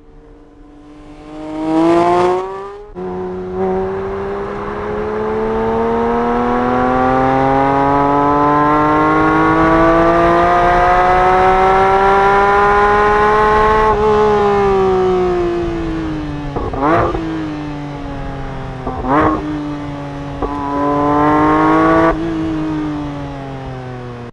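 Porsche 911 GT3's 4.0-litre naturally aspirated flat-six revving through its exhaust. It gives one quick rev near the start, then a long, slow climb in pitch that peaks and falls away. Three sharp throttle blips follow, then a last held rev that cuts off sharply and drops back toward idle.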